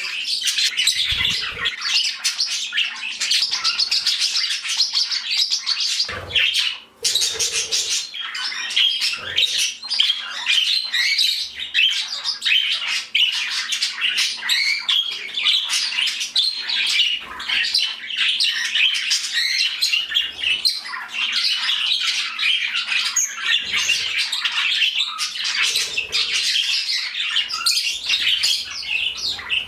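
A flock of pet budgies and cockatiels chattering, chirping and squawking continuously, with many calls overlapping; a faint steady hum runs underneath.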